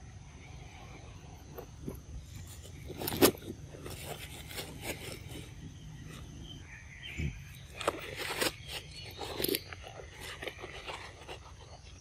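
Outdoor ambience: a steady high insect drone over a low rumble, with scattered rustles and knocks, the sharpest knock about three seconds in.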